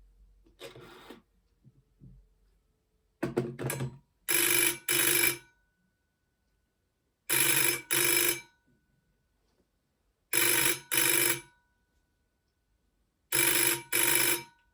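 Electromechanical bell ringer of an Iskra ATA 32 rotary-dial desk telephone ringing in a double-ring cadence: four pairs of short rings, one pair about every three seconds, after a brief uneven ring burst about three seconds in.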